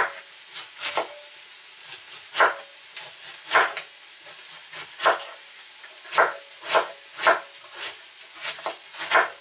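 Kitchen knife shredding a head of white cabbage on a cutting board: crisp, uneven cuts, roughly two a second, each ending in a knock on the board. Under them runs a steady sizzle of vegetables frying in pans.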